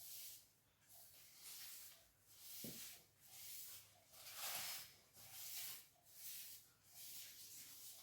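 Faint, rhythmic hissing from a cat, about one hiss a second.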